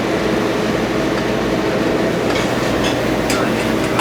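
Steady mechanical hum of kitchen ventilation, holding several low steady tones, with a few light clicks in the second half.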